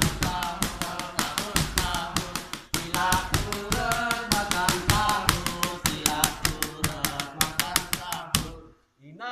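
Men singing a sahur wake-up song into a microphone over fast hand-struck percussion, a quick busy beat of taps several times a second. The sound cuts out suddenly near the end.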